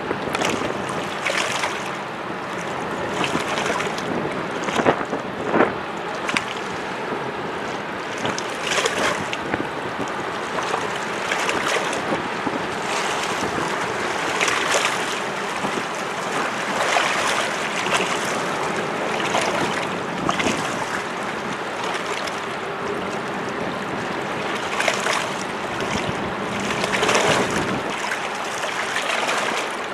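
Sea waves washing and splashing irregularly against shoreline rocks, with wind on the microphone.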